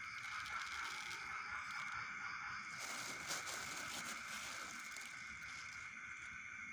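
Plastic bag of fish-feed pellets rustling and crinkling as it is handled, loudest about three seconds in, over a steady high-pitched hum.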